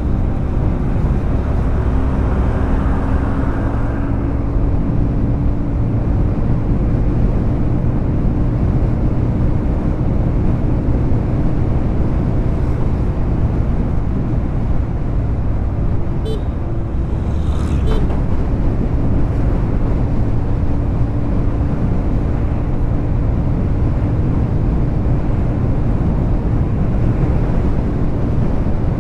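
A motorcycle under way in road traffic: its engine runs with a steady hum, and heavy wind rumble buffets the microphone.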